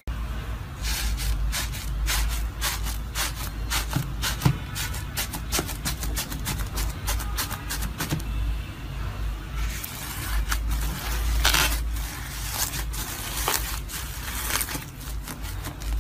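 Slime being pressed and worked by hand close to the microphone: a dense, uneven run of small clicks and pops, over a low rumble from handling.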